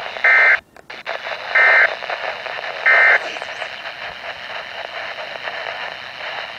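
Three short, buzzy SAME digital data bursts on a Weatheradio Canada broadcast, about a second and a quarter apart, over steady radio static. Their shortness fits the end-of-message code that closes an emergency alert. The signal drops out briefly just before the second burst.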